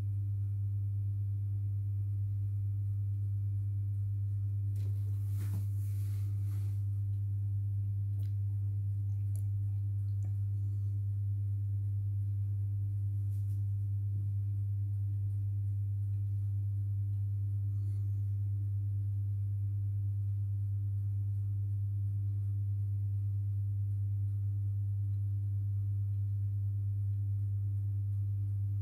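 Steady low electrical hum from a running homemade induction-coil heater and its power supply, on one pitch with faint higher overtones. A brief faint rustle comes about five seconds in.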